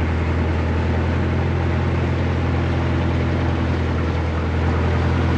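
Engine on a fishing boat running steadily at sea: a low, even drone with no change in speed.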